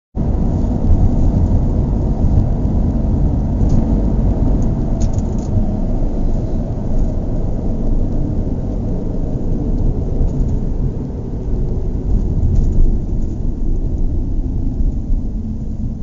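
Car engine idling: a steady low rumble that holds an even pitch, without revving.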